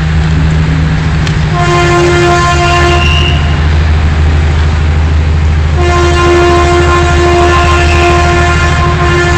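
A diesel locomotive's horn sounds two blasts over a steady low engine rumble. The first blast is short, about a second and a half in. The second is longer, starts about six seconds in and is still sounding at the end.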